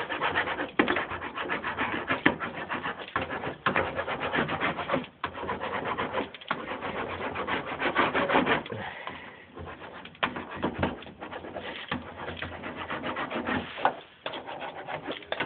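A hand rubbing and pressing a sound-deadening mat down onto a Jeep Wrangler's floor pan: a steady rasping scrape made of many small crackles, with a few short breaks.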